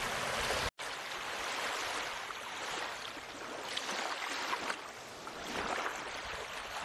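A steady bed of running water, like a flowing stream, with a very brief dropout to silence just under a second in.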